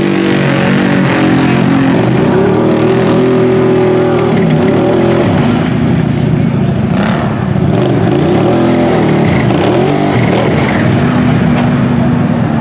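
Lifted monster mud ATV's engine revving hard under load, its pitch rising and falling again and again as the big tyres churn through deep mud.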